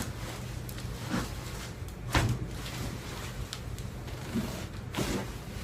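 A few dull knocks and clunks from a chiropractic adjustment and the handling around it, the loudest about two seconds in and another near the end, over a steady low room hum.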